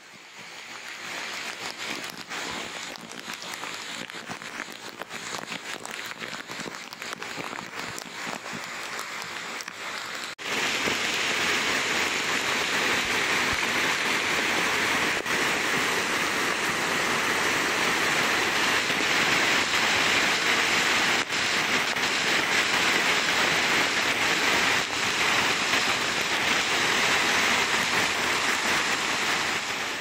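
Water rushing and splashing over rocks in a monsoon-swollen waterfall cascade, a steady hiss of white water. About ten seconds in it cuts to a closer, louder rush of water pouring straight down.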